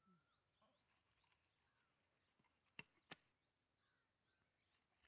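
Near silence outdoors, with faint bird chirps scattered throughout and two sharp clicks about a third of a second apart near the middle.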